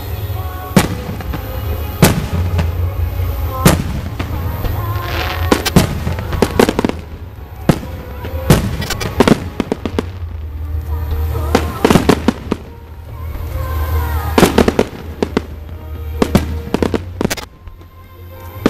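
Aerial firework shells bursting overhead: about a dozen sharp bangs at uneven intervals, with rising shells launched between them.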